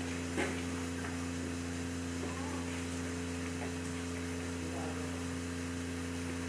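Steady low electrical hum: a drone of several fixed tones that does not change, with one faint click about half a second in.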